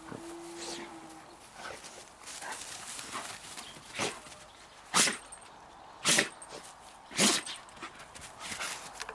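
A dog sneezing three times in a row, about a second apart, in the second half; the sharp sneezes are the loudest sounds.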